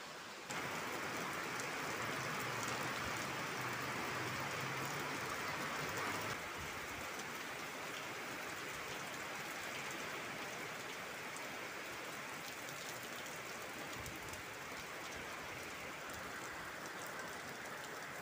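Heavy typhoon rain falling steadily, a dense even hiss. It grows louder about half a second in and eases a little after about six seconds.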